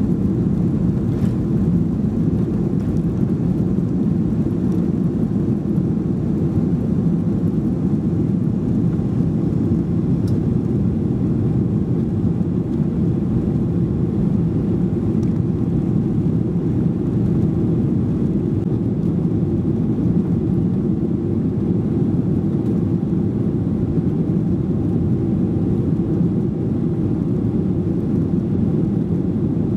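Inside the cabin of a Boeing 737-800 during its takeoff run and initial climb: the CFM56-7B jet engines at takeoff thrust, a steady low rumble with airflow noise that holds even throughout.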